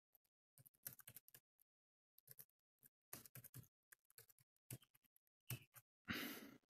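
Faint typing on a computer keyboard: irregular clusters of quick key clicks with short pauses between them. A half-second hiss comes near the end.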